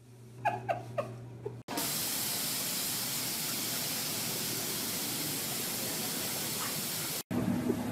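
A few short falling yelps, then a steady loud hiss that starts abruptly after a cut and stops just as abruptly near the end.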